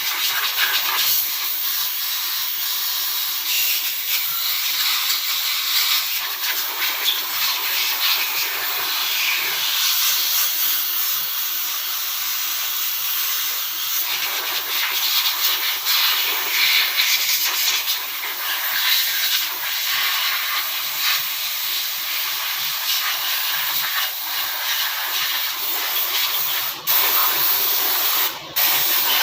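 Steady spraying hiss of a jet of air or liquid, with two brief breaks near the end.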